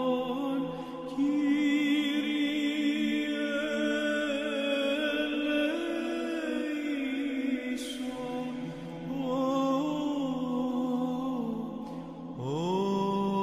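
Solo Byzantine chant by an Orthodox monk, a male voice singing a slow ornamented melody with long held notes. A new phrase starts with an upward slide near the end.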